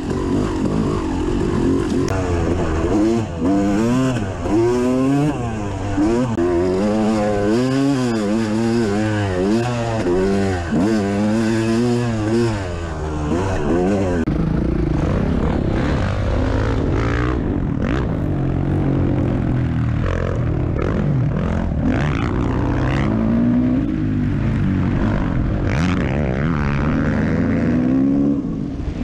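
Yamaha YZ250 two-stroke dirt bike engine heard from on the bike, revving up and down quickly as the throttle is worked. About halfway through the sound changes to a different stretch of riding, with steadier running and a few rising revs.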